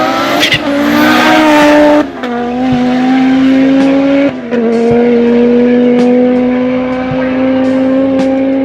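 Audi Sport quattro S1 rally car's turbocharged five-cylinder engine at high revs under hard acceleration. Its note drops with an upshift about two seconds in and again about four seconds in, then climbs slowly.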